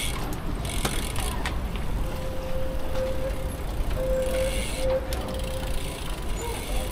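Bicycle ridden at speed, with steady wind rumble on the microphone and patches of freewheel ticking. A steady tone holds for a few seconds in the middle.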